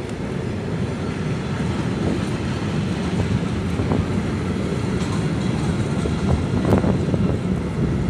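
Passenger train coaches rolling past on the track: a steady rumble of wheels on rails, with a few sharp clicks and knocks in the second half.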